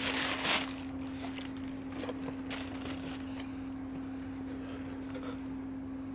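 Tissue paper rustling as it is pulled back inside a shoe box, loudest for about half a second at the start, followed by a few softer rustles and handling sounds. A steady low hum runs underneath.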